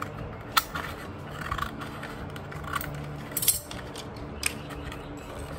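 Scissors snipping through cardstock, trimming the end of a rolled paper cone flat: several short, sharp snips at irregular intervals, with some paper handling.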